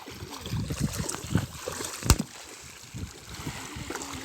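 Water sloshing and splashing in irregular bursts, with one sharp knock about two seconds in.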